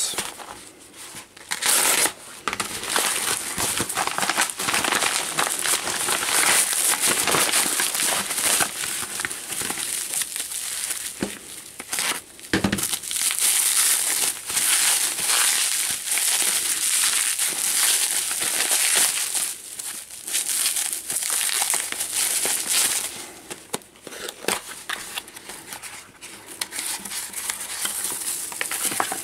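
Plastic mailing bag and bubble wrap crinkling and rustling in irregular handfuls as a parcel is pulled open and unwrapped by hand, with a few sharper crackles and knocks.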